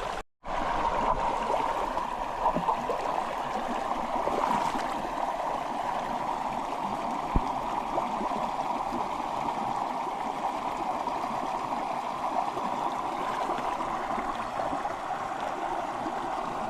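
Creek water flowing steadily over a shallow bed, an even rush with no pauses once it resumes after a brief dropout right at the start.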